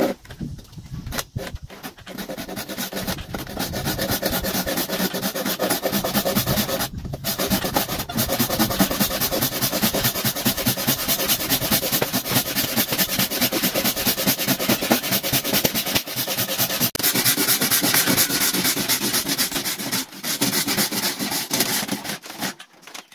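A saw cutting into a wooden pole, a steady run of rasping strokes with brief pauses about seven seconds in and again near twenty seconds, stopping just before the end.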